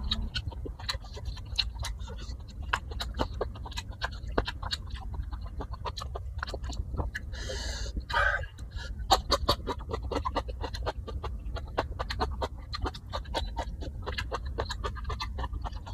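Close-miked eating sounds: a person chewing and crunching food with many irregular crisp crackles. A breathy burst of air comes about eight seconds in.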